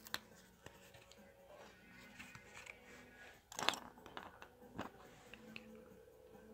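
Small handling noises from toy assembly: a few light clicks and a short rustle about three and a half seconds in, over faint background music.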